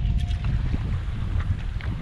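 Wind buffeting the microphone, an uneven low rumble, with a few light clicks over it.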